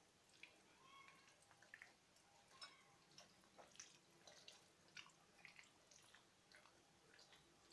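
Faint, irregular wet squishing and small clicks of chicken pieces being mixed by hand or spoon in a curd and ginger-garlic-chilli marinade.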